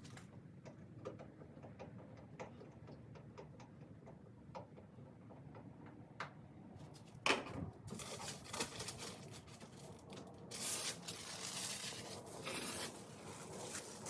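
Handling noises from fitting a pickup truck's taillight assembly: scattered small clicks, a sharp knock about seven seconds in, then louder rustling and scraping of parts being worked into place.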